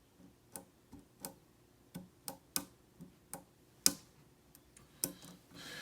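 Sharp, irregular clicks of a lock pick working the pin stack of a Schlage SC1 cylinder under tension, about a dozen over a few seconds. A rustling noise starts near the end.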